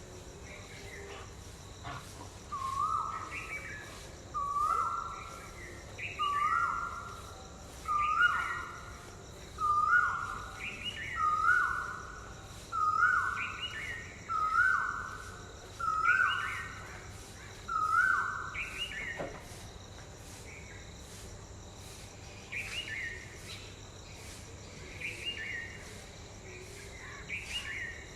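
A cuckoo calling a two-note phrase, a short high note falling to a longer lower one, about ten times in a steady series that grows louder and then stops about two-thirds of the way through. Fainter calls come near the end, over a steady background of insects buzzing.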